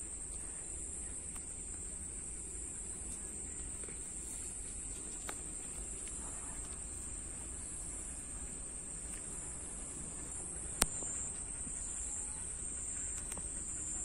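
A steady, high-pitched chorus of insects runs unbroken, and a single sharp click stands out about eleven seconds in.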